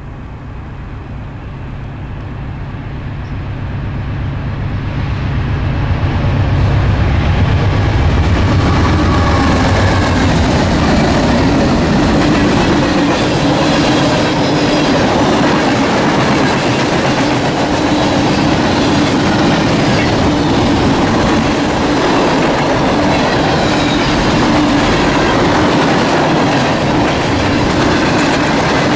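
Norfolk Southern diesel freight train passing close by: the locomotives' low rumble grows louder over the first seven or eight seconds, then turns into the steady loud clatter of wheels rolling over the rails, with faint wheel squeal.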